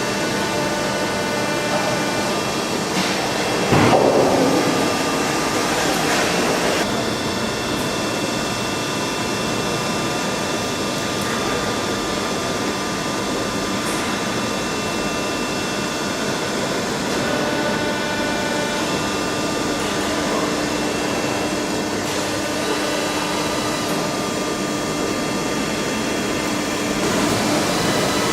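Soraluce FP 8000 CNC travelling-column milling machine running: a steady machine noise with several steady high tones, a louder surge about four seconds in, and the tones changing a few times as it works.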